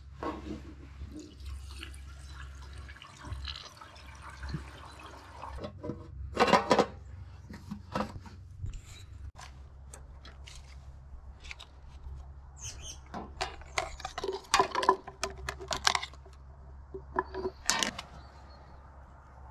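Gasoline pouring from a can's spout into a small engine's fuel tank, a liquid rush over the first several seconds. Sharp clicks and knocks follow as caps, a funnel and a plastic oil bottle are handled, over a low steady rumble.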